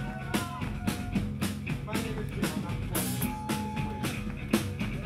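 Live rock band playing: electric guitars with held, sliding notes over a drum kit keeping a steady beat.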